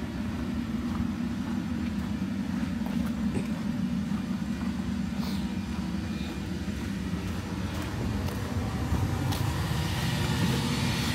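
Steady low rumble, growing a little louder near the end, with a few faint ticks.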